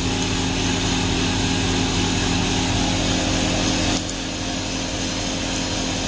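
Steady whirring of a motor-driven machine with a hum under it, dropping a little in level about four seconds in.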